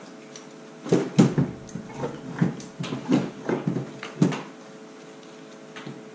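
Metal knocks and clanks from a snowmobile's disconnected two-stroke engine and its engine-bay parts being shifted and worked loose by hand: about ten irregular knocks over three seconds, then only a steady low hum.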